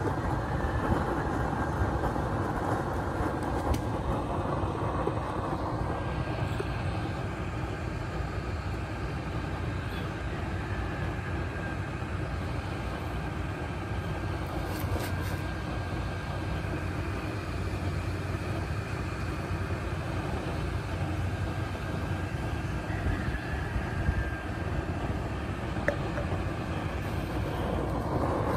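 Homemade used-oil burner running: its electric blower and swirling flame make a steady rushing noise with no change in pace.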